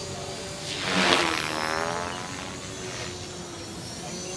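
Electric radio-controlled helicopter flying with a steady motor whine. About a second in it passes close, getting louder with a falling pitch.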